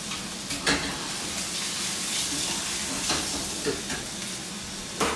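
Chicken frying in a pan, sizzling steadily, with a few sharp knocks as pans and utensils are handled at the stove.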